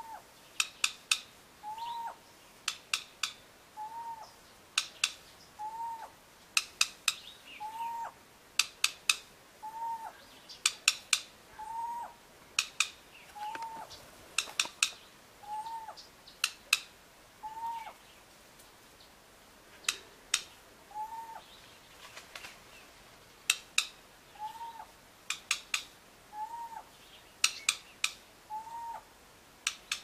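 Grey-headed bushshrike bill-snapping: clusters of two or three sharp clicks, each with a short hooting note, repeated about every two seconds with a brief pause partway through.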